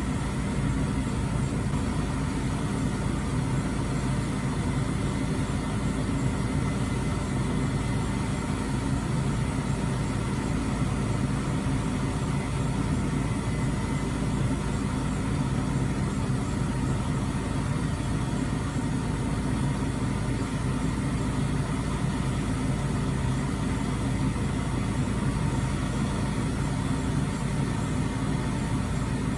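Crane truck's engine running steadily, powering the truck-mounted crane used to lift drywall bundles.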